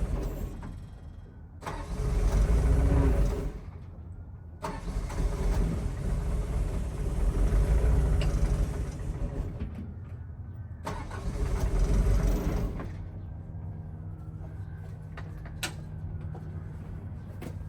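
CAT E120B excavator's diesel engine running, its sound swelling and dropping several times as the hydraulic functions are worked, then settling to a steadier run about 13 seconds in.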